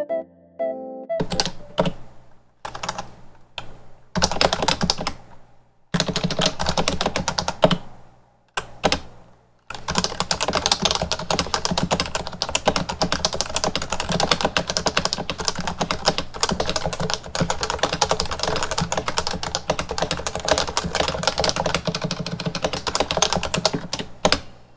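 Stock HHKB Professional Classic with Topre switches being typed on: separate keystrokes and short bursts at first, then steady, fast typing from about ten seconds in.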